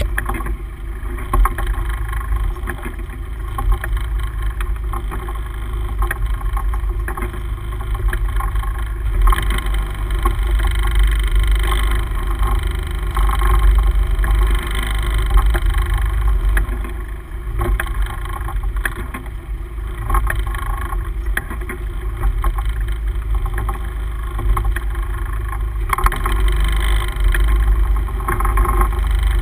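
Steady low rumble of a sport-fishing boat at sea: its engine running, with wind and water noise over it.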